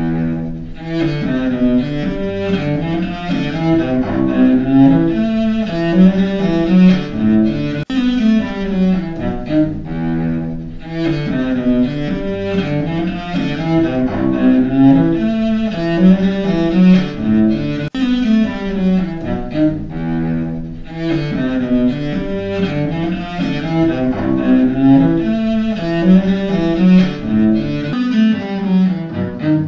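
Solo cello playing a bowed passage. The same passage is heard again about every ten seconds: once as a single-channel recording, then as binaural versions rebuilt from it.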